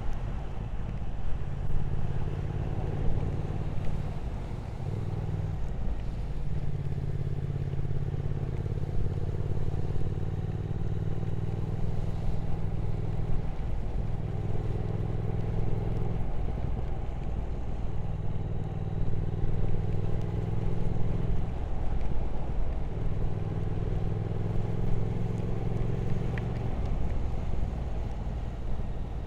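Triumph Speed Twin 1200's parallel-twin engine running at a steady pitch while riding, over a steady rush of wind. The engine note dips briefly several times along the way.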